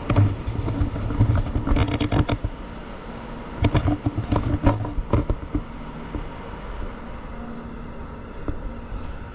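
Clattering, rattling knocks over a steady low rumble from a moving vehicle, busiest in the first two and a half seconds and again around four to five seconds in, then settling into a steadier rumble.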